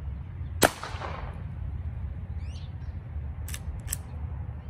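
A single shot from a Henry lever-action garden gun firing a .22 birdshot shot shell: a sharp crack with a short ring-out about half a second in. About three seconds later come two quick metallic clicks as the lever is cycled, over a low wind rumble on the microphone.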